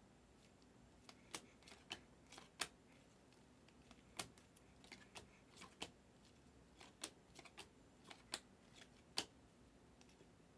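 Faint, irregular clicks and snaps of glossy Optic basketball cards being flipped one at a time through a stack held in the hands, roughly one or two a second.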